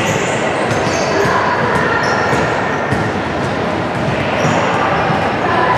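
Basketball being dribbled and bounced on a hardwood gym floor, with short high sneaker squeaks and players' voices during play.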